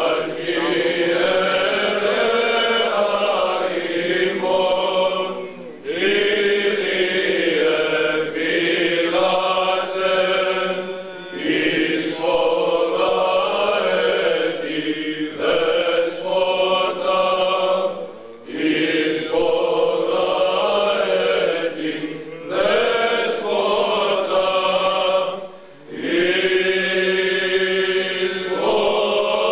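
Greek Orthodox Byzantine chant sung by a group of voices, in long held phrases with short breaks between them.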